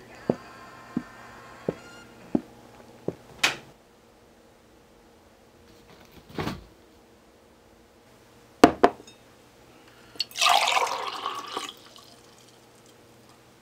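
Evenly spaced soft knocks, about three every two seconds, for the first three seconds; a dull thump; a sharp clunk of a drinking glass set down on a table; then milk poured into the glass for about a second and a half.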